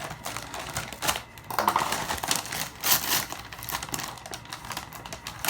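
Paper crinkling and rustling, with irregular sharp crackles, as a homemade paper blind bag is torn open by hand.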